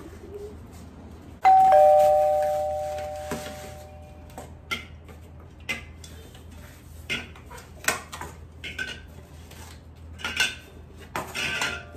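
A two-note ding-dong doorbell chime sounds once, about a second and a half in, and fades over a couple of seconds. After it, beer cans clink and knock in a run of short sharp clicks as they are taken out of a cardboard case and set down on a tile floor.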